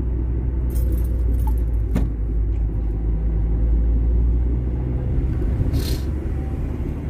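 Car driving, heard from inside the cabin: a steady low engine and road rumble, with a few brief clicks or rattles, one about two seconds in and another near six seconds.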